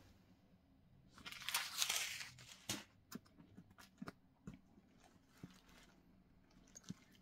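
Packaging crinkling as a new leather handbag is handled, then a few light knocks and clicks as the bag is touched and opened.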